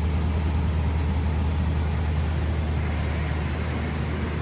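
The V8 engine of a 1977 Chrysler New Yorker idling steadily, a low even hum.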